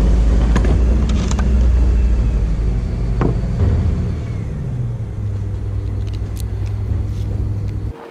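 Refuse truck engine running close by, a loud low rumble with a sharp knock about three seconds in; it cuts off suddenly near the end.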